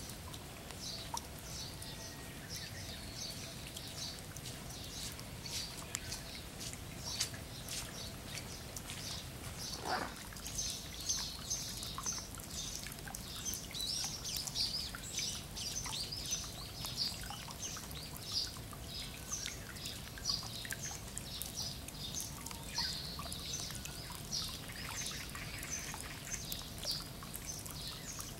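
Steady rain falling, drops pattering and dripping into puddles and on foliage, with birds chirping throughout.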